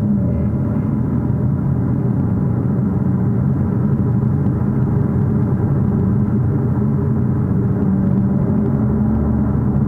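Mercedes-AMG CLA45 S on the move: steady engine and road rumble after the engine's pitch rises just before this stretch.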